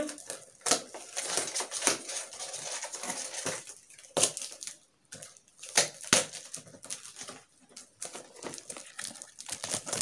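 Cardboard box being handled and its packing tape pulled off: an uneven run of scrapes, rustles and sharp knocks.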